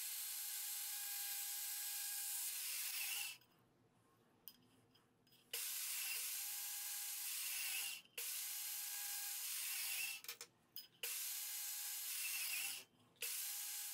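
Portable bandsaw running and cutting through a thin carbon fiber sheet: a steady hiss with a faint whine. It comes in several stretches of two to three seconds, each stopping abruptly into dead silence.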